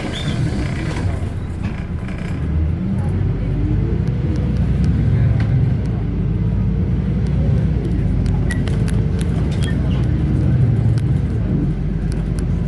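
City bus engine and road noise heard from inside the moving bus, a steady low rumble that grows somewhat louder about three seconds in, with scattered light clicks and rattles.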